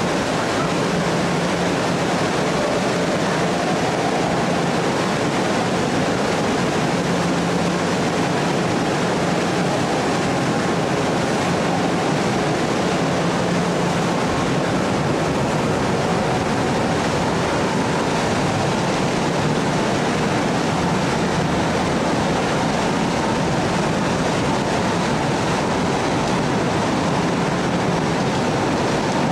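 Steady rushing and churning of the Staten Island Ferry's propeller wake, with a low engine hum underneath that comes and goes.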